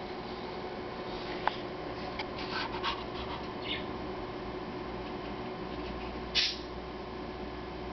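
A small dog shifting and curling up in a plush fabric pet bed: faint scattered rustles and scratches of fur and paws on the fabric, with one short, louder noisy sound about six and a half seconds in.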